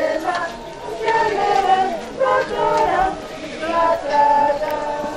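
A group of voices singing together in chorus.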